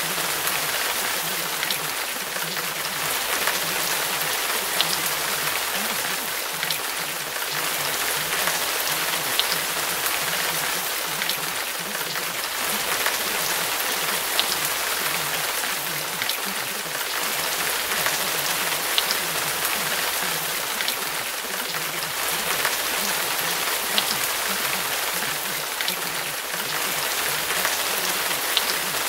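Steady rain: an even hiss with scattered sharper drop ticks, the masking track of a subliminal-affirmation audio.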